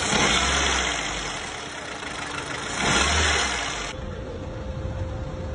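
Car engine running with a noise from inside it that the owner traces to the pistons, rings and connecting rod, a sign of internal engine wear. It gets louder twice, near the start and again about three seconds in.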